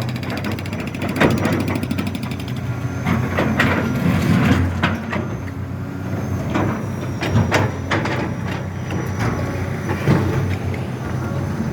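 Heavy road-construction machinery running: a steady engine hum broken by irregular metallic clanks and knocks.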